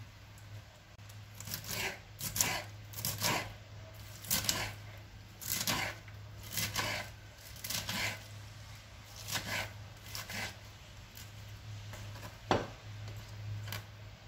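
Knife chopping fresh purslane stalks and leaves on a wooden cutting board: irregular crisp cutting strokes, roughly one a second, over a steady low hum.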